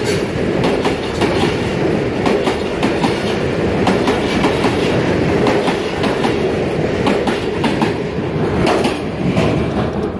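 Railway passenger coaches passing at speed: a steady rumble of wheels on rail, with a rapid, irregular clickety-clack as the wheels cross rail joints.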